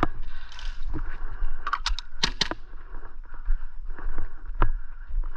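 Airsoft guns firing: irregular sharp pops, brightest in a quick cluster about two seconds in, over a low rumble.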